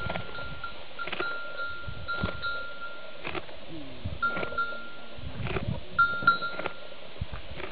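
A camel giving a low grumbling call that glides down in pitch about halfway through. A thin, high ringing tone comes and goes in short dashes throughout, with a few sharp knocks.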